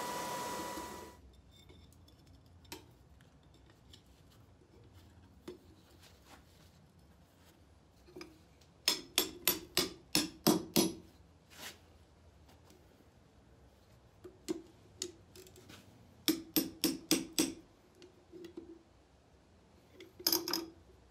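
Hand hammer striking red-hot steel on an anvil while forging the jaws of blacksmith's tongs: runs of quick ringing blows, about eight a little before halfway, a few more, about seven more, and a short run near the end, with quiet gaps between. A steady hum stops abruptly about a second in.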